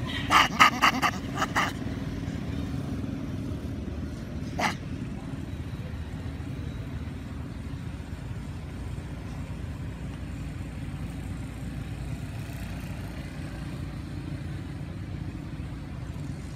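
A quick series of five or six short, loud animal calls in the first two seconds and one more call about four and a half seconds in, over a steady low background rumble.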